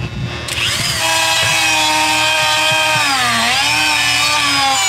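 Dremel rotary tool with a grinding bit spinning up about half a second in, then whining steadily as it widens a hole for a hose run. Its pitch sags briefly past the middle as the bit bites under load, then recovers.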